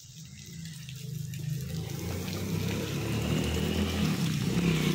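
Rain falling steadily, rising in level over the first second or two and then holding.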